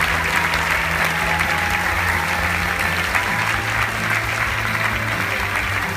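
Audience applauding, with stage music playing underneath.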